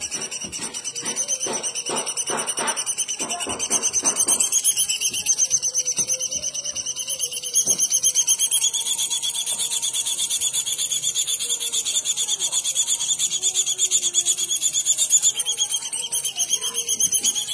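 A bird's continuous, high, rapidly pulsing trill, held without a break and dipping slightly in pitch now and then.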